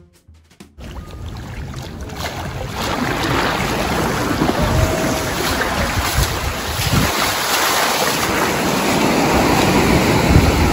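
Ocean surf washing onto a beach, with wind gusting on the microphone; the sound starts abruptly under a second in as music cuts off, then grows louder.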